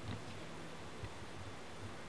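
Steady hiss with faint low bumps and a small click about a second in: a camcorder's tape hiss and handling noise as it is moved.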